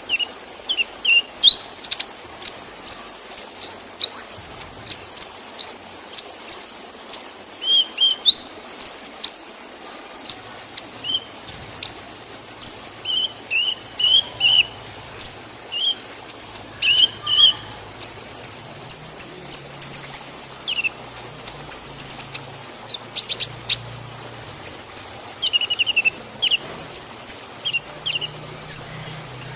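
Kolibri ninja (a sunbird) singing a fast, continuous run of short, sharp, high chirps and slurred whistled notes, several a second, over a faint steady rush of waterfall water.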